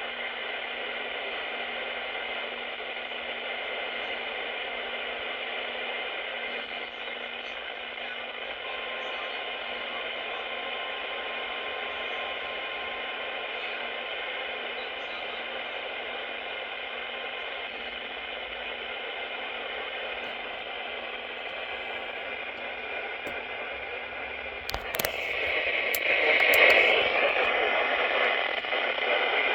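Steady static hiss from a weather radio's speaker on a weak, distant NOAA Weather Radio signal. About 25 seconds in there are a few sharp clicks, and the noise then swells louder.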